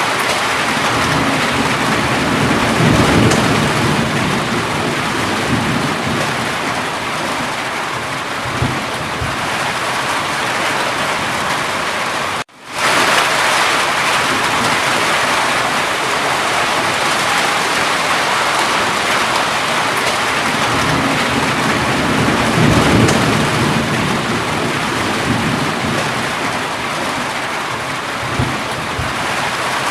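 Steady, heavy rain falling, with low rumbles of thunder about three seconds in and again past twenty seconds. Near the middle, the sound drops out for an instant and fades back in.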